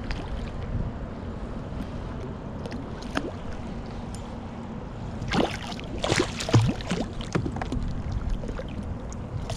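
Wind on the microphone and water moving around a kayak. About five seconds in there is a flurry of sharp splashes and knocks that lasts for roughly two seconds, as a hooked crevalle jack is fought close to the boat.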